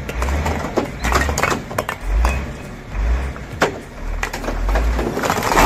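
Red clay bricks sliding off a tipper truck's raised bed and clattering onto a pile: many sharp clinks and knocks of brick on brick at uneven intervals, over a low uneven rumble. Near the end the clatter thickens into a denser rush as more bricks slide off at once.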